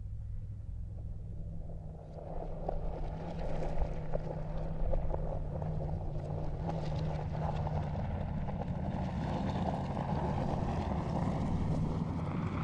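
Mercedes G-Class's twin-turbo V8 engine running under load on a gravel track, with tyre and gravel noise, getting louder about two seconds in and rising slightly in pitch near the end.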